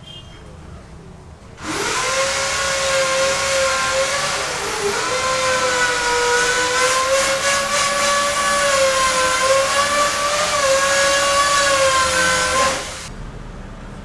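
An electric power tool's motor runs at speed for about eleven seconds, starting and stopping sharply. It gives a steady whine that wavers slightly and sags briefly once, as when the tool is pressed into its work.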